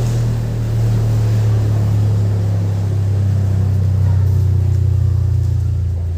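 Deep, loud bass tone held steadily through halimaw-box (turbo box) bass speaker cabinets during a sound-system check, part of bass-heavy remix music.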